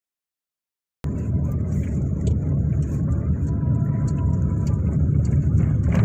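Silent for about the first second, then the steady low rumble of a moving road vehicle cuts in suddenly and runs on.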